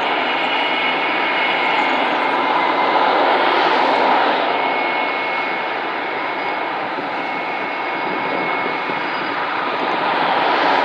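A Supermarine Spitfire and a Hawker Hurricane flying past together overhead, their WW2 piston engines running steadily. The sound eases slightly a little past midway and grows louder again near the end.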